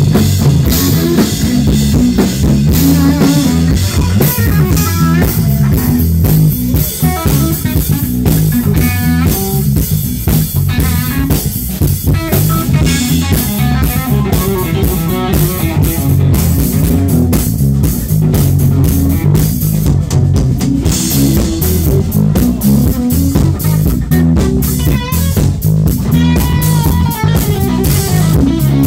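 Live rock band playing loud: a Telecaster-style electric guitar plays lines that bend in pitch over a full drum kit and bass guitar.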